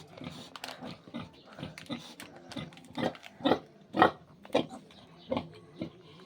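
Sow and piglets grunting in a run of short calls, the loudest coming close together about halfway through.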